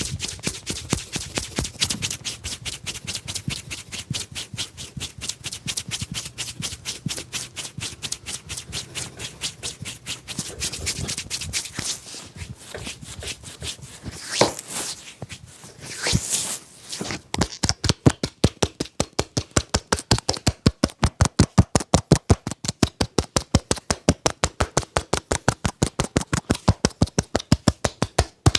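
A barber's hands tapping and slapping on skin in a rapid, steady percussive massage, several strokes a second. About two thirds of the way in, the strokes become louder, deeper and very regular.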